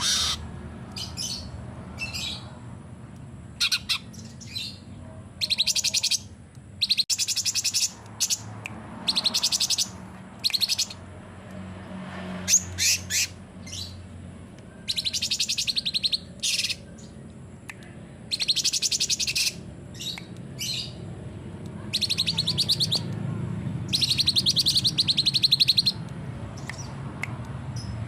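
Cucak cungkok singing in a string of fast, rattling high bursts ('tembakan'), each lasting from half a second to about two seconds, with short gaps between them, over a faint steady low hum.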